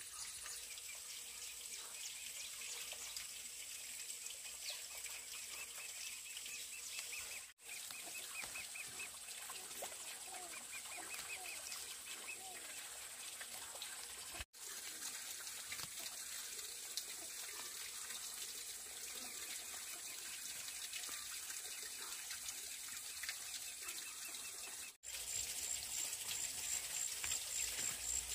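Countryside ambience: small birds chirping in quick runs over a steady high insect drone, and in the last few seconds a fast, evenly pulsing insect call. The sound cuts out for an instant three times.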